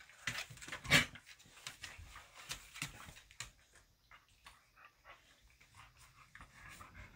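A boxer and a bully-breed dog play-wrestling on a hardwood floor: a run of scuffles and knocks, loudest about a second in, thinning to faint clicks after about three and a half seconds.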